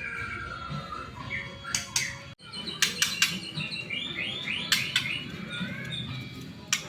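White-rumped shama (murai batu) singing. A falling run of whistled notes is followed by sharp, loud chip notes and quick repeated warbling phrases. The sound drops out for an instant about two and a half seconds in.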